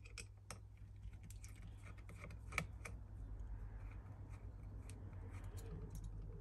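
Small screwdriver working tiny Phillips screws in the plastic back of a Mitex General Xtreme handheld radio: faint scattered clicks and scrapes, with one sharper click about two and a half seconds in, over a low steady hum.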